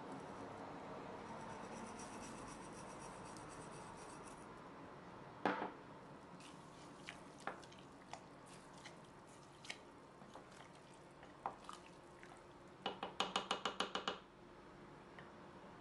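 Rock salt poured into a steel pot of thick pepper and tomato sauce, then a wooden spoon stirring and knocking against the pot. There is one sharp knock about five seconds in, scattered light clicks, and a quick run of about eight knocks near the end.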